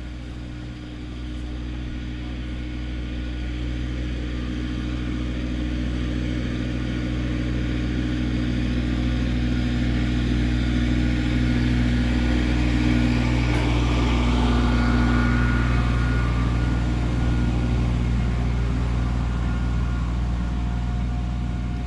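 Engine of a small tractor towing a trailer running steadily, growing louder as it comes close, loudest about two-thirds of the way through, then easing off a little as it passes.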